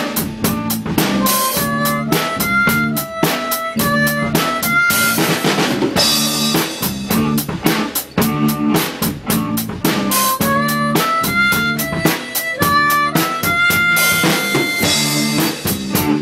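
Drum kit played with sticks in a busy, steady beat of snare, bass drum and cymbals, together with a harmonica played into a handheld microphone, carrying a melody of held notes that step up and down.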